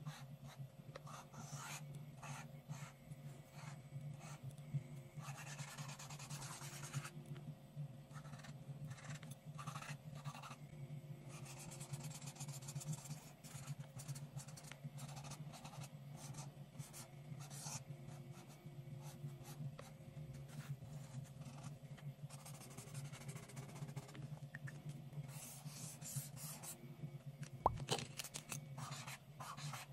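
Paint marker tips scratching and rubbing across paper in short, irregular strokes as lines are drawn, with a sharp knock near the end.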